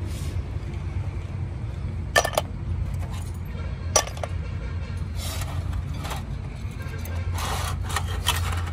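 Steel pistons and small parts of a hydraulic excavator swing motor clinking against each other and the cylinder block as they are handled, with two sharp metallic clinks, about two seconds in and about four seconds in, over a steady low hum.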